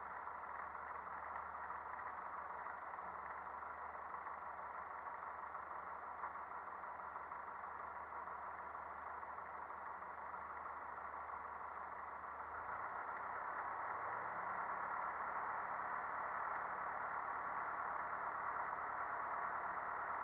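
Cessna 152's four-cylinder Lycoming engine and propeller running at low power on the ground, heard from inside the cabin as a steady, muffled drone. A little over halfway through it grows louder and holds, as the engine speed is raised slightly.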